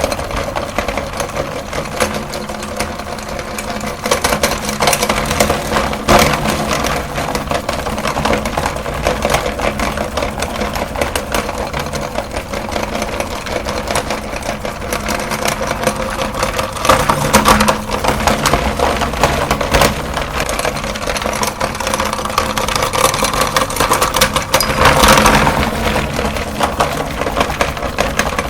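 Electric meat grinder running steadily as it grinds chalk: a constant motor hum under dense, irregular crunching and cracking, louder in spells about two-thirds of the way in and near the end.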